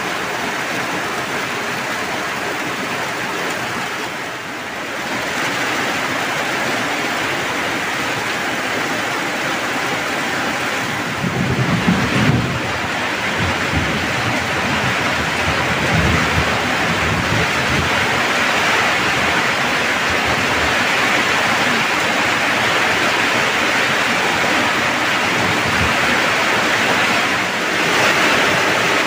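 Heavy rain pouring down in a steady, dense hiss. About eleven seconds in a low rumble of thunder rises, peaks briefly, and rolls on more weakly for a few seconds.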